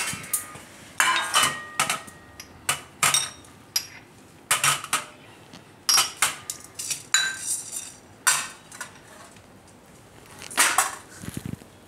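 Small spice bowls clinking as they are set down one after another on a stainless-steel plate: a string of irregular sharp clinks with a brief metallic ring. A duller thump comes near the end.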